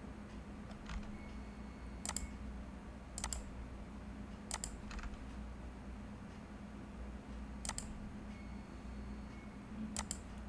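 Computer mouse clicking: about half a dozen crisp, separate clicks at uneven gaps of one to three seconds, several heard as a quick double tick, over a faint steady low hum.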